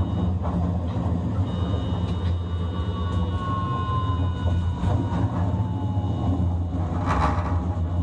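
Hiroshima Electric Railway 1000 series low-floor tram running, with the steady rumble of wheels on the rails and the high tones of its Toyo Denki IGBT-VVVF traction inverter. From about three to six seconds in, a whine falls slowly in pitch as the motors slow, and a short noisy burst comes about seven seconds in.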